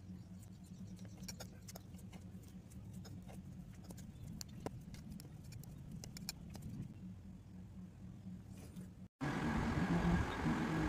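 Metal palette knife pressing and spreading soft modelling clay: scattered small clicks and scrapes over a steady low hum. About nine seconds in, a louder, noisier steady hum takes over.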